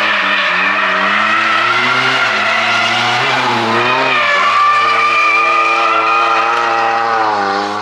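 A drift car on track, its engine held at high revs with the pitch wavering as the throttle is worked, and its tyres squealing in a long, unbroken slide.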